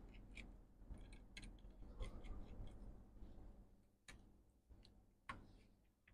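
Faint, irregularly scattered small clicks and light taps from fingers handling parts inside an open MacBook Pro, working at its logic board and connectors.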